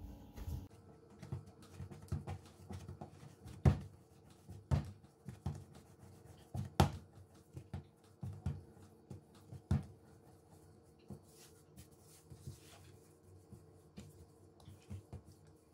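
Hands kneading, rolling and patting a ball of sweet shortcrust dough on a floured worktop: soft, irregular thuds and pats, with a few sharper knocks scattered through.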